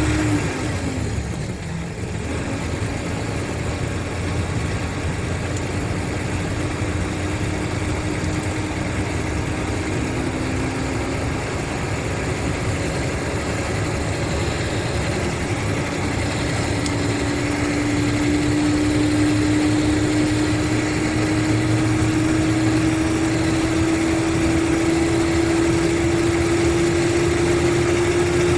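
Mercedes-Benz O500RSD coach's diesel engine running, with a steady whine that drops away briefly about a second in, then returns and slowly rises in pitch over the second half as the sound gets a little louder.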